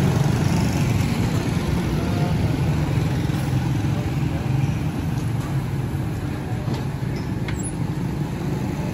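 Street traffic dominated by the steady low running of small motorcycle engines, including a motorcycle loader rickshaw with a cart riding close by. A few faint clicks sound in the middle.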